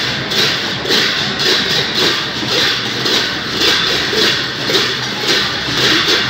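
A procession band's drums and cymbals beat about twice a second, with the dense noise of a large crowd underneath.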